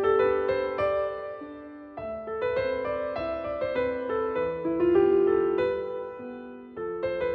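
Background piano music, a gentle melody of steady notes in phrases that swell and fade.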